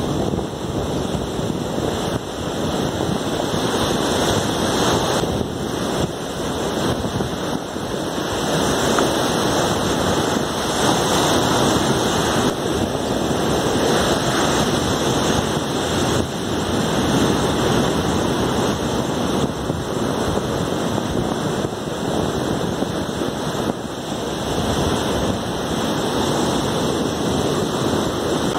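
Ocean surf breaking and washing up a rocky sand beach in a steady roar of waves, with wind rumbling on the microphone.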